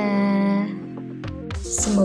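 Background music; a low beat comes in just past a second in.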